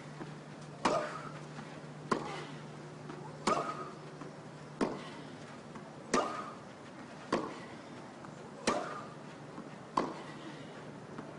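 Tennis rally: racket strikes on the ball trading back and forth about every one and a quarter seconds, eight hits in all, with a short grunt from one player on every other shot.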